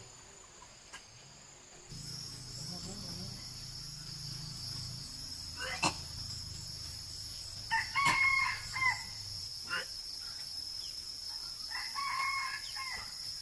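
A rooster crowing twice, each crow a little over a second long, over a steady high drone of insects.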